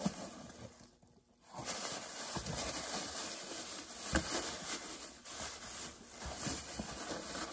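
Plastic bag rustling and crinkling as it is handled and opened, starting about a second and a half in, with scattered crackles.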